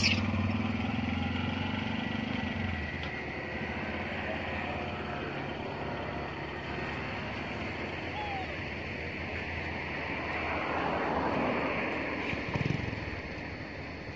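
A motor vehicle's engine running with a low steady hum that fades out about three seconds in, followed by an even outdoor background noise that swells and dies down again a little before the end.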